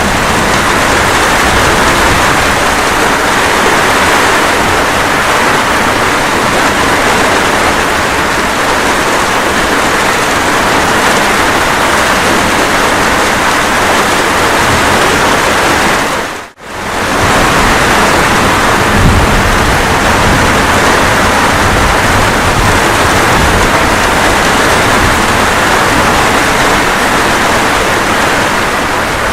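Steady, dense rain noise. A little past halfway it drops out for a split second and comes straight back, like the seam of a looped recording.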